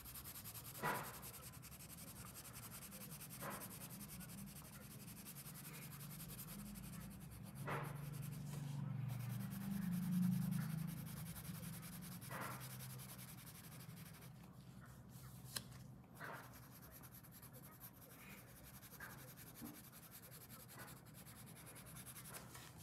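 Colored pencil shading on paper: a faint, steady scratching rub of the lead across the sheet, with a few soft knocks along the way.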